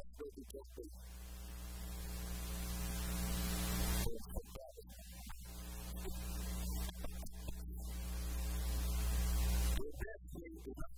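Electrical hum buzzing through the sound system, twice swelling louder over a few seconds and cutting off suddenly, with short bits of a man's voice between the swells. It is the sign of a faulty headset microphone feed.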